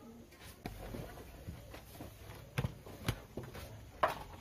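A few knocks and thumps of a laptop being handled and set down on a wooden desktop, with three sharper knocks in the second half.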